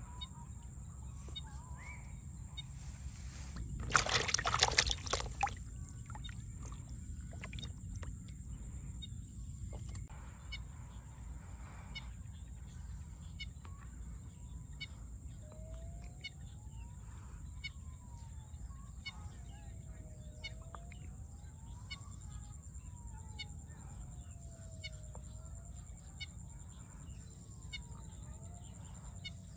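Birds calling in the countryside. From about halfway in, a whistled call sweeps up and back down in pitch, repeating roughly every two and a half seconds, over scattered short chirps and a steady high-pitched drone. About four seconds in, a loud noisy burst lasts about a second.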